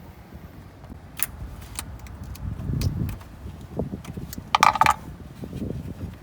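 Workshop handling noise from taking out a plastic coolant expansion tank with its hoses and clamps: scattered clicks and knocks, a low rustle of parts being moved, and a short bright metallic clink a little before the end.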